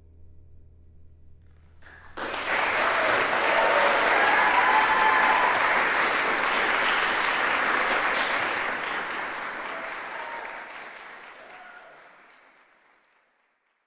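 The faint last ring of a tam-tam dies away, then audience applause breaks out about two seconds in, holds, and fades out near the end.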